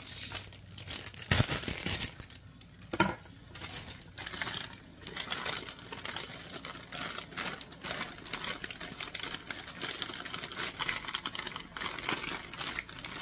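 Plastic bag of fresh spinach crinkling and rustling as it is handled and the leaves are tipped into a skillet. There are two sharp knocks in the first three seconds.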